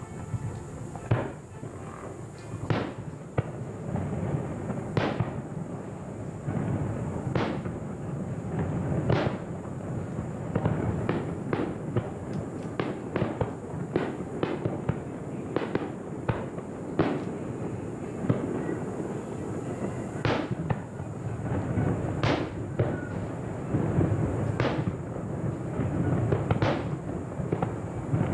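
Aerial fireworks shells bursting in a string of sharp bangs, a second or two apart, with a dense rapid barrage of bangs and crackle in the middle and widely spaced loud booms again near the end.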